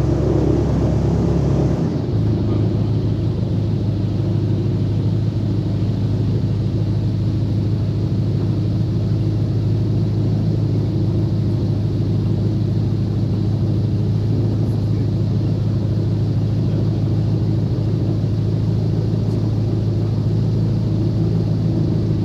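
Airboat engine and propeller running steadily. About two seconds in the note shifts and the high hiss falls away, then it holds a steady drone.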